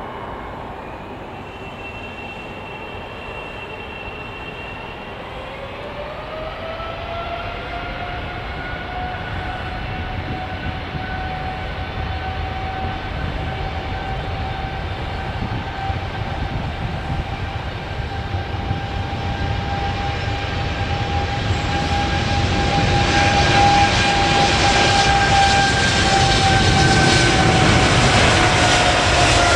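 Boeing 777's twin GE90 turbofan engines spooling up for takeoff. A whine rises in pitch about six seconds in and then holds while the engine noise builds steadily. It grows much louder about three-quarters of the way through as takeoff power comes on and the jet rolls past, and near the end the whine drops slightly in pitch.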